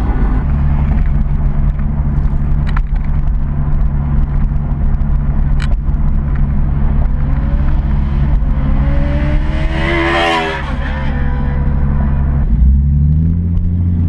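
Nissan 370Z's 3.7-litre V6 through a Fast Intentions cat-back exhaust with catless test pipes, heard from inside the cabin: a steady low drone while cruising. A higher sound swells and fades about ten seconds in, and near the end the pitch climbs as the car accelerates.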